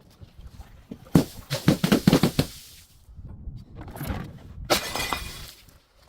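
Glass bottle breaking and being crushed: a rapid cluster of sharp cracks and crunches a second in, then more crackling with one loud crack near the end.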